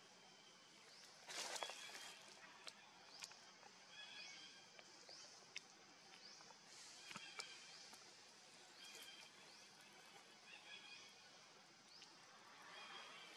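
Faint, high chirping animal calls repeating every second or two, with a brief rustle about a second and a half in and a few sharp clicks.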